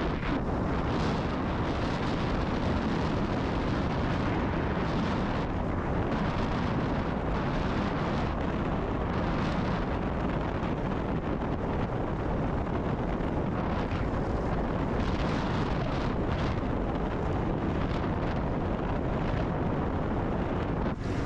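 Steady wind rush buffeting the microphone of a Kawasaki KLR650 motorcycle under way, with the bike's single-cylinder engine running underneath.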